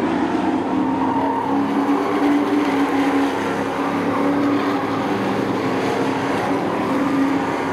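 Engines of several short-track racing trucks running together as they circle the track, a steady engine note that holds its pitch.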